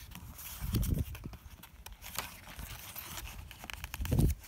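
Pages of a large picture book being turned and handled: crisp paper rustling and crackling, with a soft low thump about a second in and another near the end as the pages and book settle.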